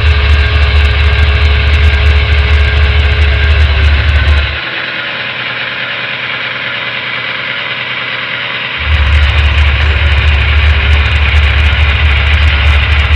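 Model locomotive's digital sound system playing a steady, heavy engine rumble through its speaker and a Rolling Thunder subwoofer. The deep bass cuts out suddenly about four and a half seconds in, leaving a thinner sound, and comes back about four seconds later.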